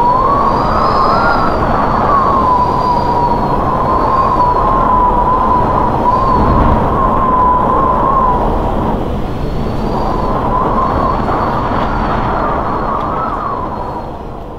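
Strong wind rushing over a cyclist's camera microphone, with a whistle that wavers around one steady pitch, drops out for about a second partway through, then comes back before the sound eases off near the end.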